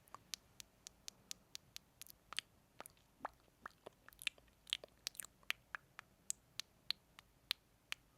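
Close-miked ASMR mouth sounds: a steady run of sharp, wet lip and tongue clicks, irregular, about three or four a second.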